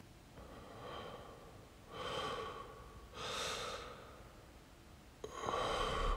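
A person breathing heavily: four loud breaths about a second each, the last one starting abruptly near the end.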